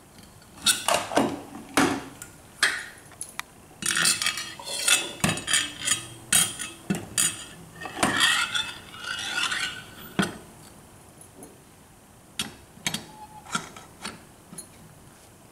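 Metal pneumatic-cylinder test stand with a steel weight being handled, turned over and set down on a wooden workbench: a run of knocks, clatters and rubbing for about ten seconds, then a few lighter clicks near the end.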